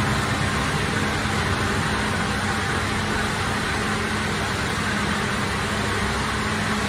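Bakery machinery running steadily: a constant low hum under an even rushing noise.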